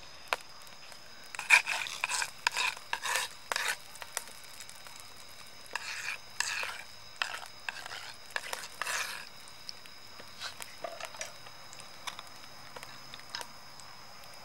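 Oil being rubbed across a flat stone slab heated over a wood fire, scraping and sizzling in two bouts of short bursts a couple of seconds long, over a faint steady high tone.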